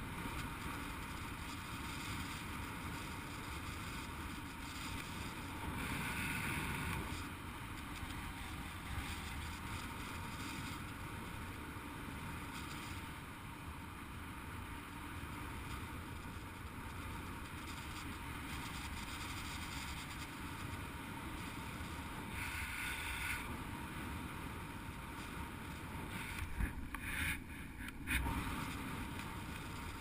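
Steady wind rushing over the microphone of a camera on a flying paraglider, with a couple of brief louder gusts. A few sharp knocks come near the end.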